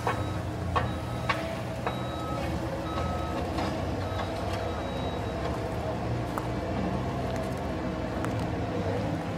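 Kubota SVL75 compact track loader's diesel engine running steadily, with its backup alarm giving about four short beeps in the first few seconds. A few sharp knocks come near the start.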